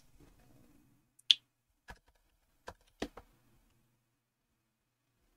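Computer keyboard keystrokes as a terminal command is typed: a few separate key clicks, the first and loudest a sharp click about a second in, then a pause of about two seconds before one more click at the end.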